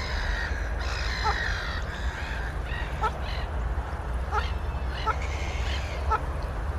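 Waterfowl calling: a few longer, harsh calls in the first two seconds, then short honks repeated about once a second.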